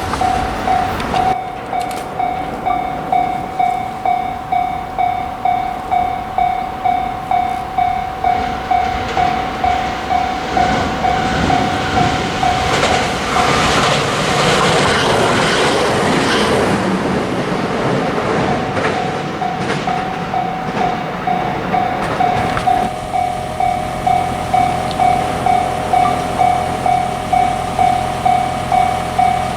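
Japanese level crossing's warning bell ringing in a steady repeating clang, about two strikes a second. A train runs over the crossing in the middle, its rushing wheel noise swelling and then fading and briefly covering the bell.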